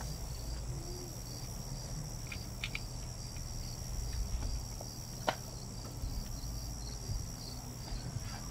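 Insects chirping in a steady, evenly pulsing high drone over a low rumble, with a sharp click about five seconds in.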